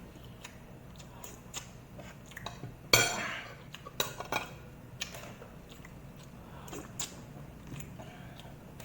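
Eating sounds: cutlery clinking and knocking against dishes at irregular moments, the loudest clink about three seconds in, with some chewing.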